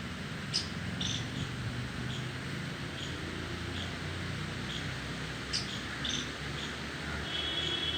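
Squirrels calling: short, high chirps repeating about once a second, with two sharp clicks and a buzzier, drawn-out call near the end.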